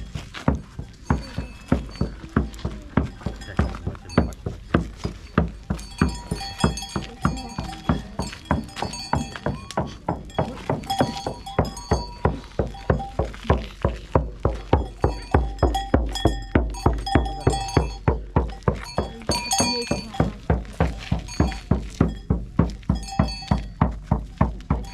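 A steady drumbeat, about three beats a second, with metallic jingling and clinking over the beats.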